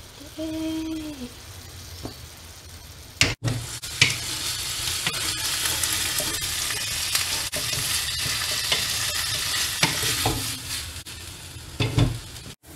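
Kimchi stir-frying in sesame oil in a nonstick frying pan: steady sizzling, with a wooden spatula scraping and knocking against the pan. The sizzling becomes much louder about four seconds in, after a brief gap.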